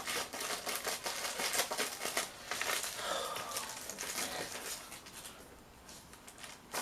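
Crinkling and rustling of packaging being handled and opened, a dense crackle that dies down after about four seconds.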